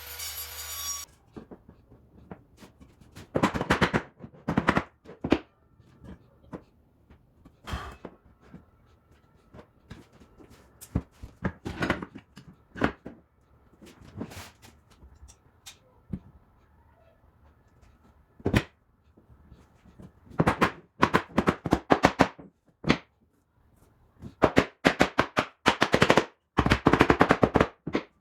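Sharp knocks, some single and some in quick bursts of several strikes, with the densest bursts in the last third.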